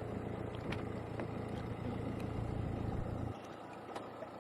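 Street ambience with the low rumble of a motor vehicle's engine, which drops away abruptly about three seconds in, leaving the general hum of the street with a few faint clicks.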